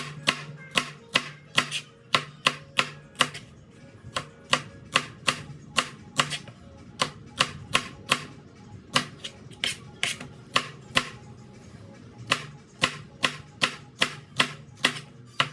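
Kitchen knife slicing red onions on a cutting board: a sharp chop about two to three times a second, with a couple of short pauses.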